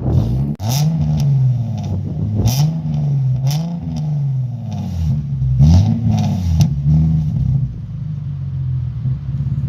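An Infiniti V6 engine revved in place, about six quick throttle blips whose pitch rises and falls back toward idle, with sharp cracks at several of the peaks.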